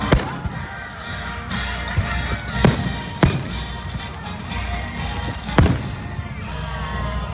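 Aerial fireworks shells bursting in sharp bangs, about five in a few seconds, the loudest near the middle and again past five seconds in, over steady music playing underneath.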